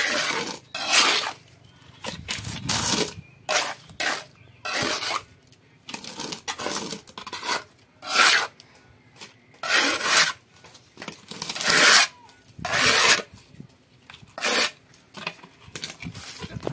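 Steel trowel scraping through wet cement mortar on a concrete slab as the mortar is mixed and scooped: irregular scraping strokes, roughly one a second.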